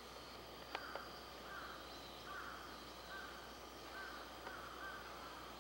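Faint outdoor ambience with a bird giving a run of short, evenly spaced calls, roughly one a second. Two faint clicks sound just before the calls begin.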